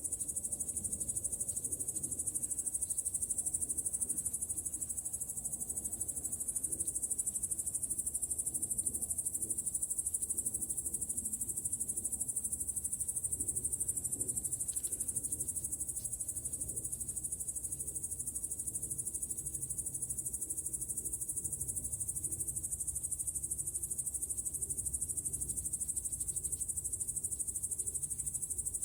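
A steady, high-pitched chirring chorus of insects, such as crickets, that runs on without a break.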